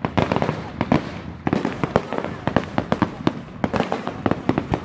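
Fireworks going off in a rapid, irregular string of sharp cracks and pops.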